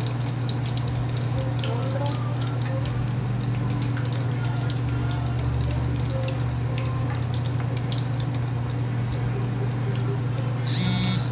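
Food crackling and sizzling over a steady low hum, with a short electronic beep near the end.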